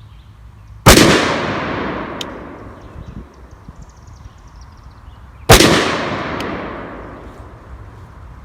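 Two shots from a PSA AR pistol in .223/5.56, about four and a half seconds apart. Each is a sharp crack followed by a long echo that dies away over two to three seconds.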